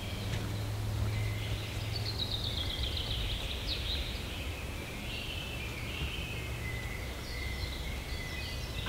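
Forest birds singing, one giving a fast trill of notes that falls in pitch about two seconds in, followed by shorter phrases, over a low steady background rumble.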